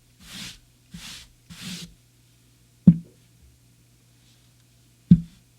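Three short rustling swishes close together, then two sharp knocks about two seconds apart, over a steady low hum.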